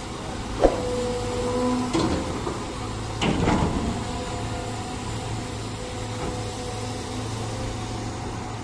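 Excavator running with a steady low hum, a sharp click about half a second in, then knocks and scraping around two and three seconds in.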